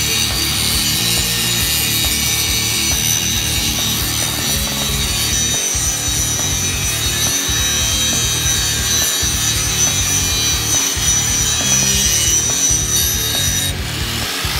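Angle grinder cutting steel: a steady high whine with a rasping edge that drops away shortly before the end.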